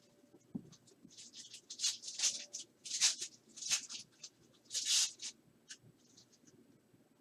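Plastic wrapping on a box of trading cards crinkling and tearing as it is opened: a quick run of short, hissy rustles, loudest about three and five seconds in.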